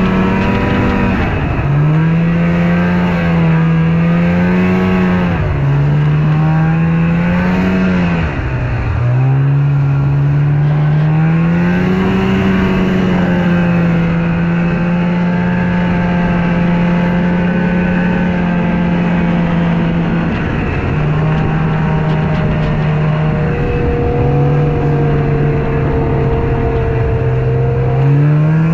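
Snowmobile engine running, its pitch dropping sharply and climbing back again several times in the first half, then holding fairly steady with a couple of short dips.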